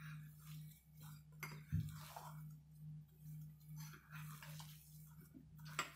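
A hand kneading and squeezing a soft mash of boiled potato, cooked semolina and rice flour on a plate: soft, squishy rubbing strokes about twice a second. There is a dull knock a little under two seconds in and a sharp click near the end, over a steady low hum.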